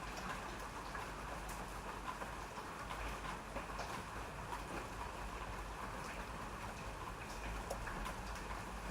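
Steady rain falling, an even hiss with scattered sharper drop ticks and a low rumble underneath.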